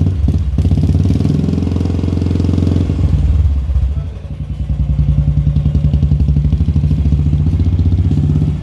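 Royal Enfield Classic 350 single-cylinder engine running through a Vardenchi retro aftermarket silencer, with the even exhaust thump of the bike. The level drops briefly about four seconds in, then comes back.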